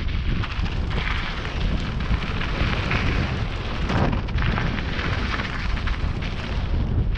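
Wind buffeting the microphone of a helmet-mounted camera on a mountain bike riding down a gravel trail, a steady heavy rumble with the crunch of tyres on gravel and quick rattling clicks from the bike over rough ground.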